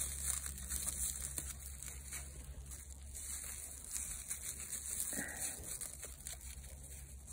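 Thin plastic film crinkling as it is stretched and wrapped by hand around a plant graft, busier in the first two seconds or so, then quieter.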